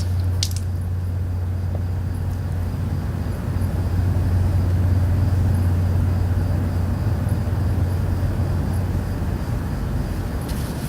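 A steady low-pitched droning hum, the unexplained 'strange sound' reported around Stockton, California, with faint hiss above it and a brief crackle near the start and again near the end.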